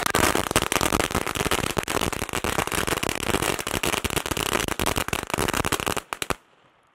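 Fireworks going off: a loud, dense run of rapid bangs and crackles that stops abruptly about six seconds in.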